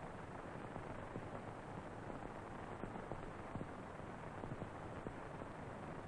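Steady hiss with faint scattered crackles: the surface noise of an old film soundtrack.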